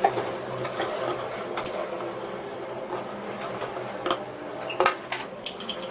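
A few separate sharp clicks and light knocks of small hard parts being handled, over a steady low hum.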